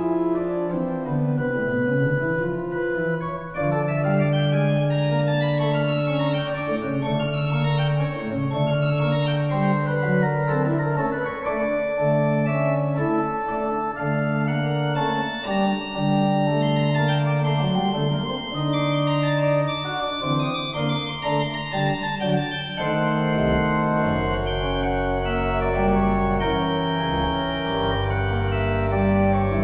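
Pipe organ playing dense sustained chords, with fast runs of notes sweeping up and down. About three-quarters of the way through, deep bass notes come in.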